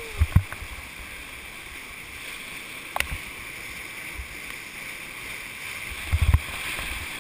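Whitewater rapids rushing steadily around a kayak, heard close up from a camera on the boat, with a sharp knock about three seconds in and a few low thumps near the end.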